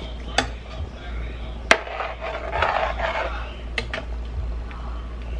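A spoon stirring Salisbury steaks in gravy in a large aluminium pot, clinking sharply against the pot three times, the loudest about a second and a half in, with scraping and sloshing between the clinks.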